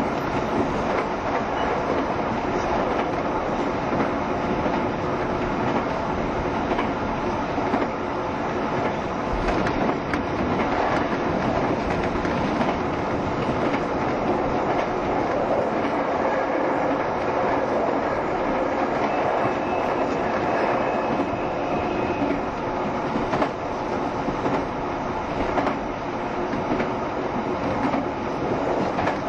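JR Shikoku 7200 series electric train running at speed, a steady noise of wheels on rail and the running gear.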